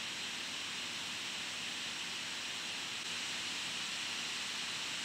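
Steady, even background hiss with no other sound: the room tone and microphone noise of a screen-recorded tutorial.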